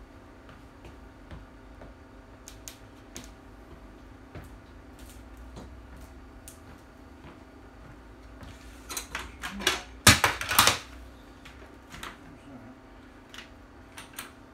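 Small hard objects being handled: scattered light clicks, with a short flurry of clattering knocks about nine to eleven seconds in.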